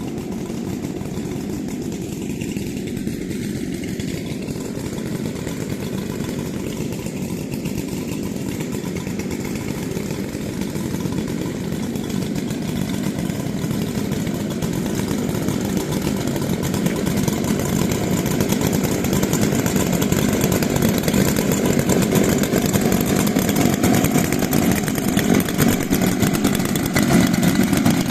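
Large professional two-stroke chainsaw running continuously, with the sound growing gradually louder over the stretch.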